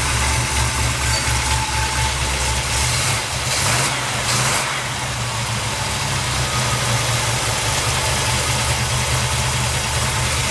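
Freshly rebuilt small-block Chevy 350 V8 idling steadily, with a little valve-train noise on one side that the owner thinks needs another valve adjustment.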